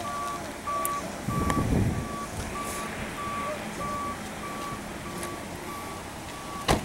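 A steady run of short single-tone electronic warning beeps, about three every two seconds, that stops shortly before the end. There is a brief low rustle or bump about a second and a half in.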